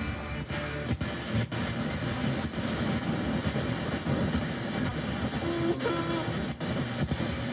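A radio broadcast played through the Toshiba SA-3500 receiver and its speakers, buried in heavy static hiss from a weak signal. A few brief tones break through about six seconds in.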